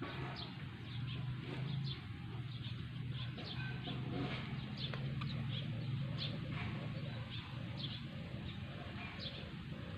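Birds chirping outdoors: short, high, falling chirps about once a second, over a steady low hum.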